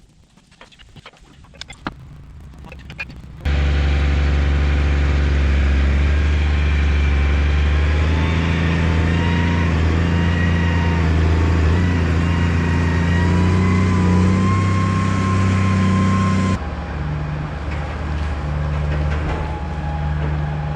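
Tractor engine running steadily under way, coming in abruptly a few seconds in and dropping to a lower level near the end. A few faint knocks come before it.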